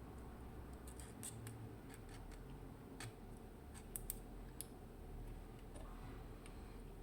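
Faint, scattered small metallic clicks and ticks of a Mottura C55 dimple-lock cylinder being taken apart by hand, with a sharp pair of clicks about four seconds in.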